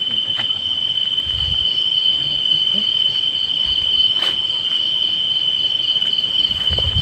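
Night insects, crickets, trilling steadily on one high note, with a fainter pulsing trill above it.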